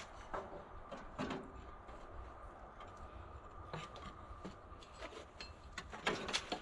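A few scattered light knocks and clinks of hand tools and metal parts being handled while the tractor's electrical panel is worked loose, over a faint steady hum.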